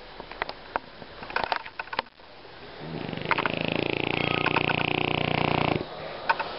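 French bulldog snuffling with short clicky sniffs, then a long snoring grunt about three seconds long that starts around three seconds in and stops abruptly.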